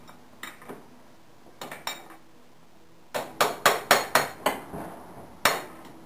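Hammer blows on a steel bar, driving the motor mount bolt out of a GY6 scooter engine. A few light taps come first, then a quick run of about six sharp metallic strikes, each with a short ring, and one more hard strike near the end.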